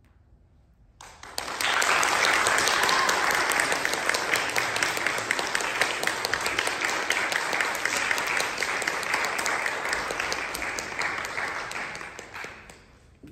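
Audience applauding: dense clapping that starts suddenly about a second in and fades out near the end.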